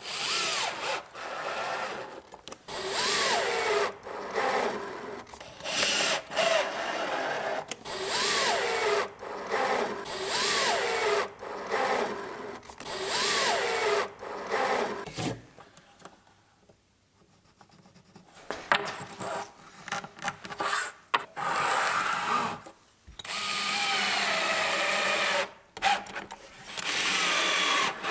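Festool cordless drill run in short bursts into the holes of a drilling template fixed in a cabinet base, the motor speeding up at the start of each run, with brief gaps between runs and a longer pause a little past halfway.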